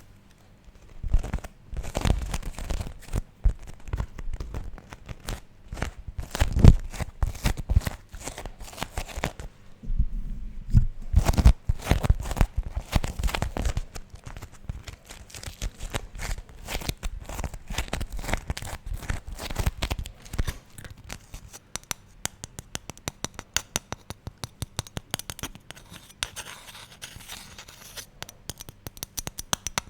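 Beeswax food wrap, sticky from the warmth of the hands, being crinkled, pulled and peeled apart in a dense run of crackles and tearing sounds. The handling is louder in the first half and turns to lighter, finer crackling from about twenty seconds in.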